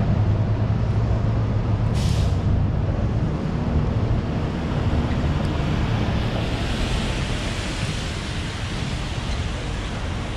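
City street traffic with a large vehicle's engine running close by, a steady low hum. A short hiss about two seconds in, like air brakes releasing, and a rising hiss of traffic noise from about halfway on.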